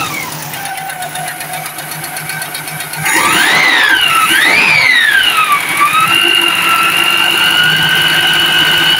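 Air-cooled VW engine with its fan-shroud plate cut and bent close to the cooling blower, so the fan gives a turbo-like "nging" whine. The whine first sinks as the revs drop, then the engine is blipped twice on the carburettor throttle, the whine rising and falling with each blip, and about two-thirds through it is held at a steady raised speed.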